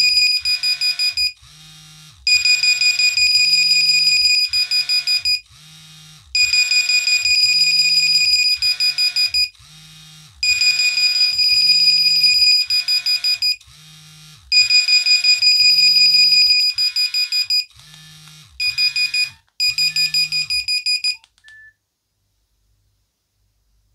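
Three Nokia 1100 (RH-18) mobile phones sounding their alarms together: shrill, rapidly pulsing electronic beeps in bursts of a few seconds with short gaps. Near the end the alarms cut off one after another as they are switched off.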